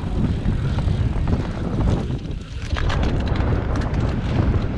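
Wind buffeting the racer's camera microphone in a steady low rumble, with a short lull about two seconds in. From about three seconds in, a run of quick rattling clicks and knocks from the cyclocross bike going over rough dirt.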